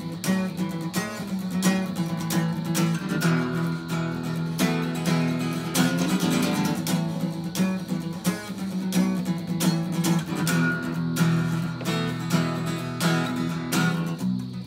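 A solo acoustic guitar strummed in a steady rhythm with ringing chords, played as an instrumental break with no singing.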